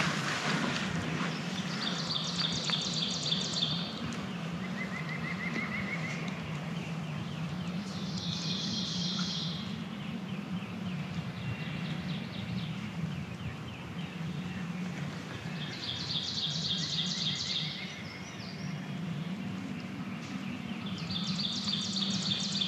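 Songbird singing in spring woods: a quick, high trilled phrase about a second and a half long, repeated roughly every six seconds, with fainter lower trills from other birds between. A steady low hum runs underneath.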